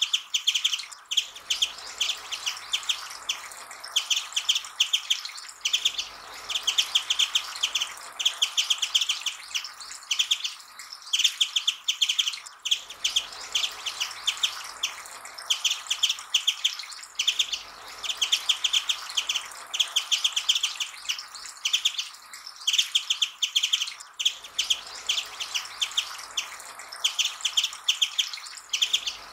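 Japanese white-eye song: quick runs of rapid, high twittering notes, each phrase about a second long, repeated over and over with short pauses.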